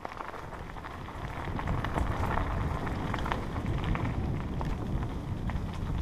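Bicycle tyres rolling fast over a dirt and gravel trail, with many small ticks and rattles from grit and the bike, over a low rumble of wind buffeting the microphone. It grows louder over the first couple of seconds as speed builds.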